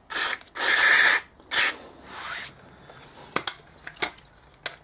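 Aerosol brake and chain cleaner sprayed in four short hissing bursts onto a motorcycle's brake caliper pistons, the second burst the longest, then a few light clicks as the can and caliper are handled.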